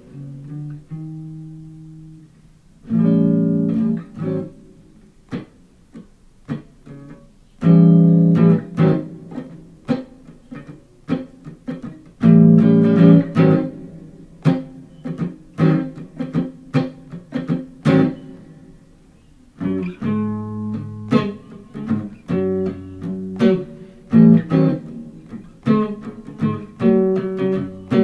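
Stratocaster-style electric guitar playing a blues in A: struck chords left to ring and fade, with short chord stabs and single notes between them. The playing gets busier about twenty seconds in.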